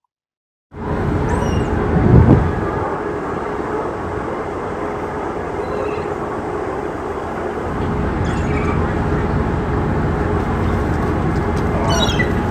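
Steady outdoor waterfront noise with a low rumble, swelling briefly about two seconds in, with a few faint short high calls from gulls.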